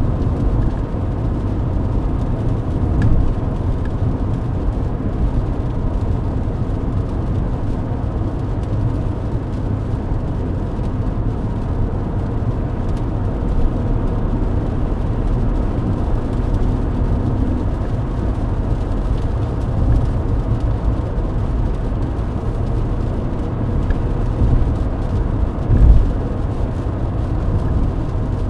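Steady cabin noise of a Mercedes-Benz W124 at highway speed on a wet road: a low rumble of engine and tyres heard from inside the car, with a few low thumps, the strongest near the end.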